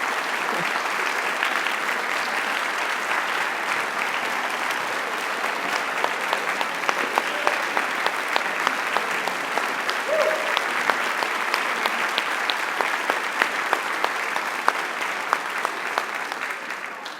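A large audience applauding steadily for about sixteen seconds, the clapping dying away near the end.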